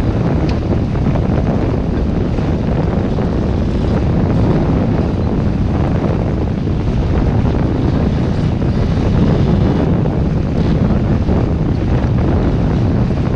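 Steady wind buffeting the microphone aboard a sailboat under way in a fresh breeze. It makes a loud, even rumble with no breaks.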